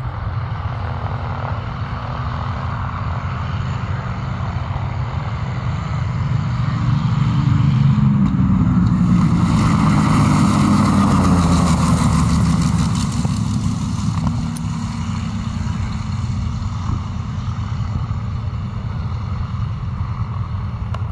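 P-51 Mustang's Merlin V-12 engine running at low power as the fighter lands and rolls out on grass, with the propeller's beat in it. It grows louder as the plane comes close, peaks in the middle, and its note drops as it passes, then it settles back to a steadier, quieter run.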